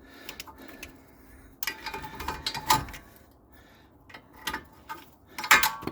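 Metal brake parts clinking and rattling as they are worked loose by hand: the thin backing (vibration) plate and the pads coming off the rear brake. It goes as scattered clicks, with two bursts of ringing metallic clatter, one about two seconds in and one near the end.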